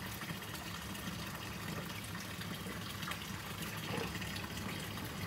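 A steady, even rushing noise like running water in the background, with only a faint tick or two.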